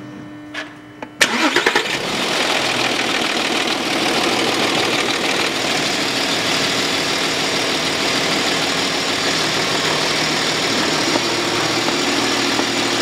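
Audi Q7's 3.0 TDI V6 diesel engine cranks and catches about a second in, then settles into a steady idle. It is started mid-way through a transmission fluid fill, so the gearbox pump draws in the new ATF.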